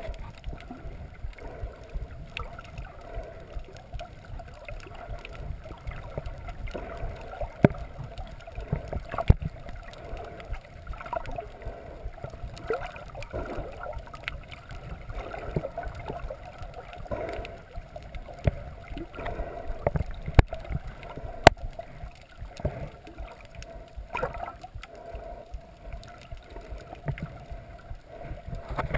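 Muffled water sloshing and gurgling heard through an underwater camera, with a steady low rumble and scattered sharp clicks.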